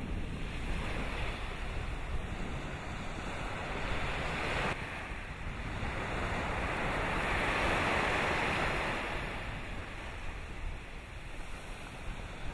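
Surf washing onto a beach, rising and falling every few seconds, with wind rumbling on the microphone.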